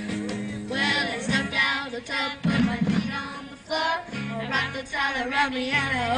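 A group of children singing a song together over an instrumental backing.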